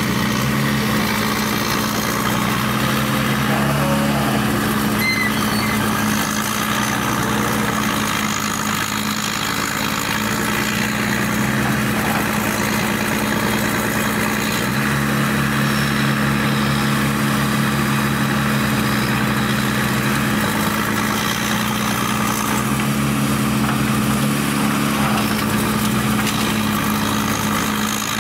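Heavy diesel machinery, an excavator working with a wood grinder, running steadily with a constant engine drone. A deeper hum swells in and drops out several times.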